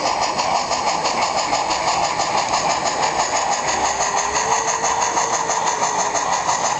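Model steam locomotive and its freight cars running along a model railway track: a steady running noise with a fast, even pulsing.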